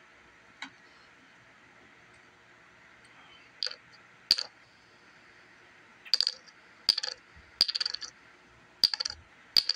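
Short, sharp, slightly ringing clicks, a few at a time in small clusters, starting about three and a half seconds in after near quiet.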